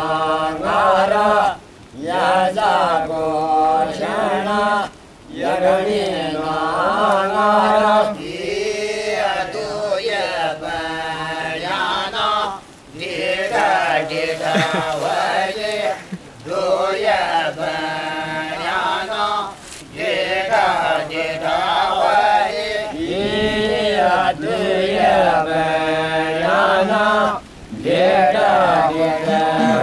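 Devotional chanting: voices sing a hymn in long, melodic phrases of a few seconds each, with brief pauses for breath between them.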